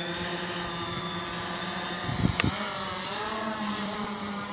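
Quadcopter drone's motors and propellers humming steadily as it lifts off and climbs, the pitch wavering as it manoeuvres. A short low thump about two seconds in.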